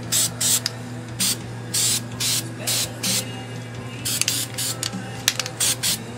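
Aerosol spray-paint can sprayed in many short hissing bursts, putting tan camouflage paint on an AR-15 rifle. A few sharp clicks come between the bursts around the middle.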